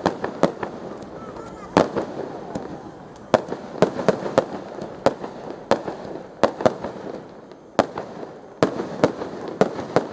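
Aerial fireworks bursting in a rapid, irregular string of sharp bangs, about two a second, with a steady rumble between them.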